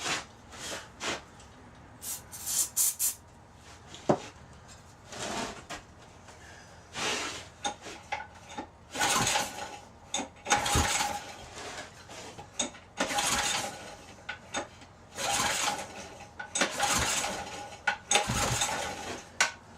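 Old rototiller's small engine being pull-started over and over on full choke, the recoil starter cranking it in about six pulls a second or two apart without it catching. A few short hisses come before the pulls.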